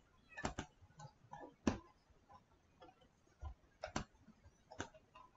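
Faint, irregular clicks of a computer mouse and keyboard, a handful of sharper ones spread across a few seconds.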